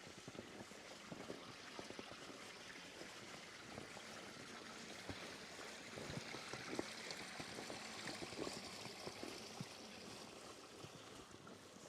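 Running water, like a small stream or channel, hissing steadily and swelling a little in the middle, with scattered soft crunches of footsteps in snow.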